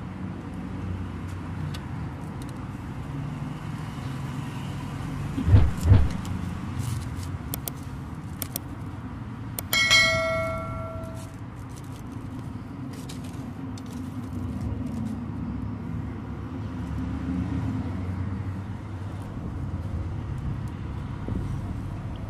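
A wire-mesh bird cage trap being handled and set: scattered small clicks, two dull knocks about five seconds in, and a short metallic ring about ten seconds in that dies away over a second or so, over a steady low rumble.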